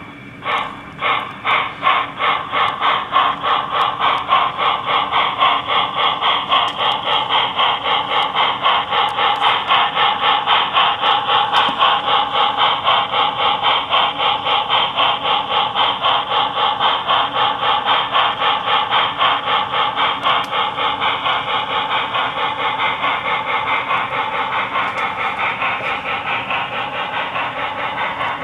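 Digitally reproduced steam-locomotive exhaust chuffs from a QSI sound decoder in an HO-scale Proto 2000 0-6-0 switcher, played through the model's small speaker. The chuffs start a few at a time and quicken as the locomotive pulls away, settling into a fast steady beat.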